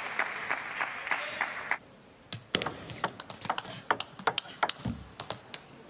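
Crowd applause that stops abruptly a little under two seconds in. After a short pause comes a table tennis rally: the celluloid ball clicks sharply against the paddles and the table, in quick irregular succession.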